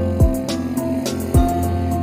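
Background music with a steady drum beat and plucked guitar notes.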